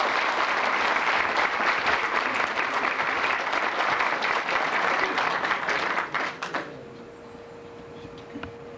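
Audience applauding, a dense patter of many hands clapping that dies away about six and a half seconds in, leaving a faint steady hum.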